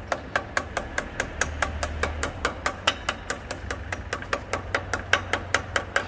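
Rapid, even metallic tapping, about five strikes a second, each with a short ring, over a steady low hum; it stops at the end.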